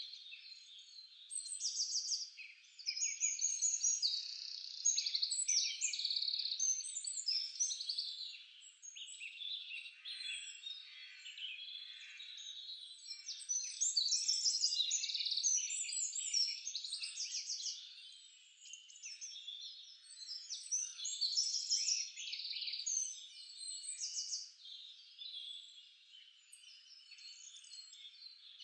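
A dense chorus of birds chirping and trilling, many short calls overlapping, rising and falling in loudness, with nothing low-pitched beneath them.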